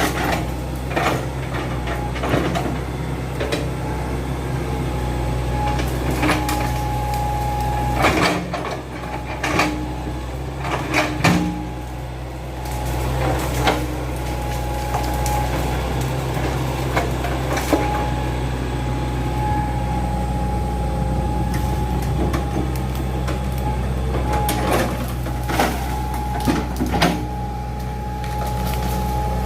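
Excavator's diesel engine running steadily with a steady high whine over it, and scattered sharp knocks as it digs a trench, several coming in quick clusters.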